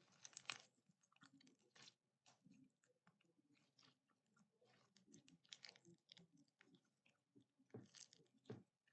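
Slime being squished and kneaded by hand: quiet, irregular sticky crackles and pops, denser about half a second in and again near the end.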